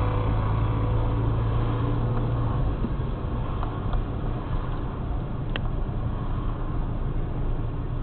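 Yugo Florida 1.3 EFI's four-cylinder engine running with tyre and road noise, heard from inside the cabin while driving slowly through town. A steady low hum fades about two and a half seconds in, and there is a single sharp click about five and a half seconds in.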